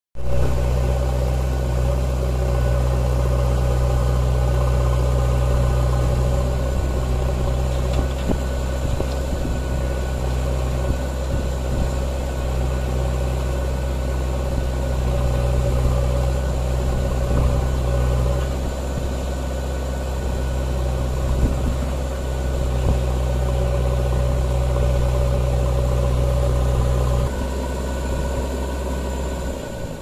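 Diesel engine of a JCB 3DX backhoe loader running at a steady speed, a loud, even low hum; near the end the hum drops away in two steps.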